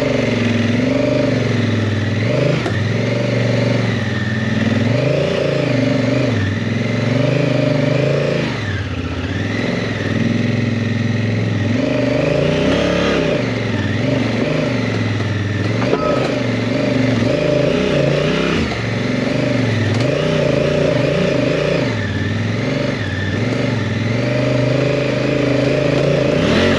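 Honda Africa Twin's parallel-twin engine under load on a steep off-road climb, its revs rising and falling continually as the rider works the throttle.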